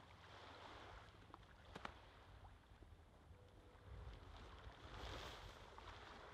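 Near silence: faint outdoor shoreline ambience with a low rumble and soft swells of hiss, and a couple of small clicks about two seconds in.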